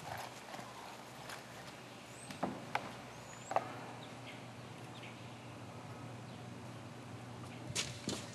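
Scattered light knocks and taps, about half a dozen, the sharpest about three and a half seconds in and a pair near the end, over a faint low hum.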